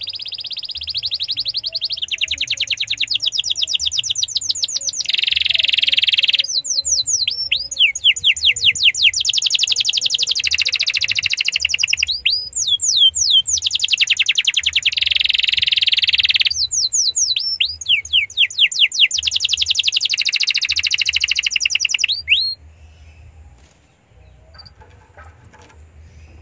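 Domestic canary singing a loud, lively song of fast trills and rolls, broken by runs of sharp falling whistles, that stops suddenly near the end. It is the full, vigorous song played as a lure to get other canaries singing.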